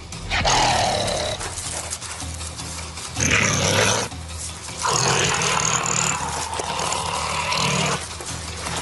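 Harsh animal growling and hissing, in three long bursts, the last and longest running about three seconds.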